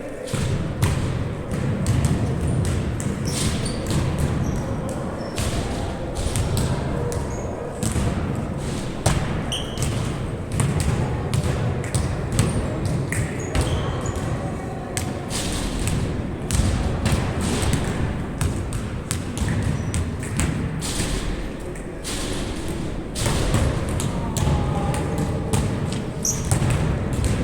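Ambient sound of an amateur game recorded on a handheld device: a constant low rumble with frequent thumps and knocks and faint brief voices or calls.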